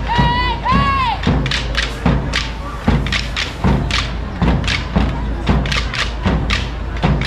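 Drums beating a steady rhythm of about two thuds a second over crowd noise, with two short high calls in the first second.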